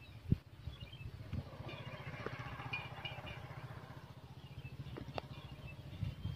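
An engine running steadily with a fast, low putter, with birds chirping over it and a few sharp clicks.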